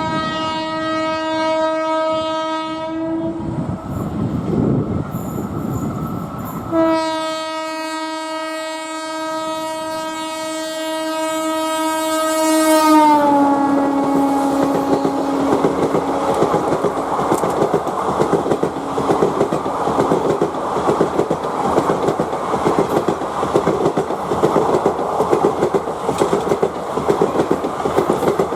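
Indian Railways electric locomotive horn: one long blast, a pause of a few seconds, then a second long blast whose pitch drops about 13 seconds in as the locomotive passes. Then the express coaches rush past at speed, their wheels clattering rhythmically over the rail joints.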